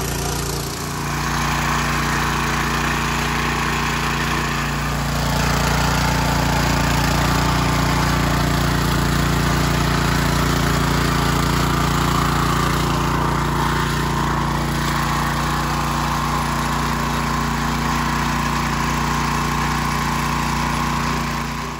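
Small petrol engine running steadily at a fixed pitch, getting somewhat louder about five seconds in.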